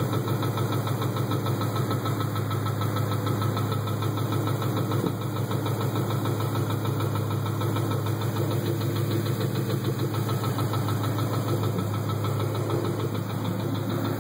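2012 Ford Mustang GT 5.0 V8 running at a steady speed with a fast, continuous knocking. The knock came on after the oil level fell to about three of its eight quarts with no sign of a leak, and the owner thinks it has ruined the engine.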